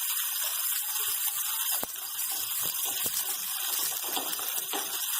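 Sizzling in a frying pan as sprouted moong beans are cooked with onion and tomato in a little oil, a steady hiss with a few light clicks.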